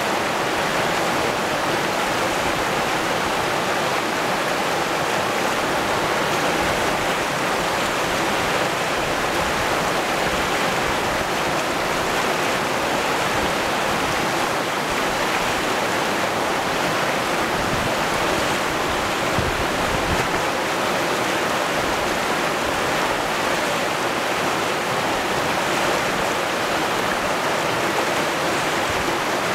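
A fast river rushing over rapids and boulders: a steady, unbroken wash of white water.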